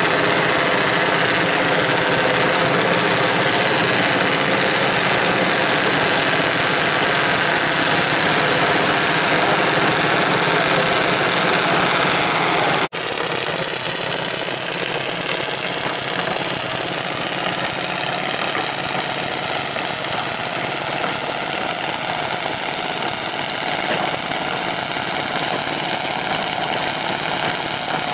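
Junior dragsters' single-cylinder engines idling steadily. The sound drops out abruptly about thirteen seconds in and comes back slightly quieter.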